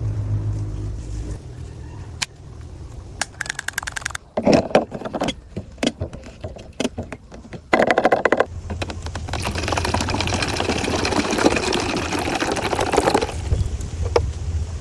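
Scattered clicks and knocks of handling, then water running or pouring steadily for about four seconds in the second half.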